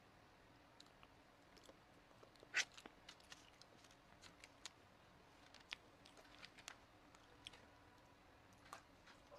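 Faint, close-up mouth sounds of eating soft molten chocolate lava cake from a spoon: scattered wet smacks and small clicks, with one sharper click about two and a half seconds in.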